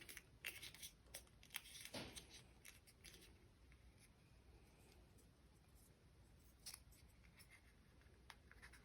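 Faint clicks and rubbing from handling small plastic parts as a flexible sound tube is pushed onto a sound module's speaker. The clicks are busiest in the first few seconds, then it goes nearly silent with one more click near the end.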